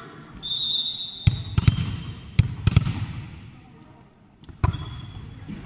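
A volleyball bouncing several times on a sports hall's wooden floor as a player readies her serve, then one sharp smack near the end as the serve is hit. A short, high, steady whistle sounds early on. The knocks ring on in the hall's echo.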